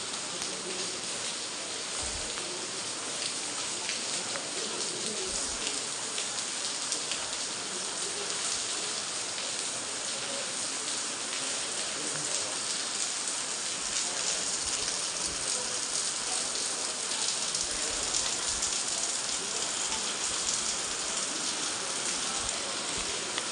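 Steady rain falling and pattering on hard, wet surfaces, with a few brief low thumps.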